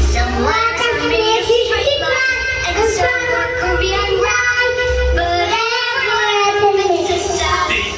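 Children's phonics song: a sung vocal line over backing music with a bass beat.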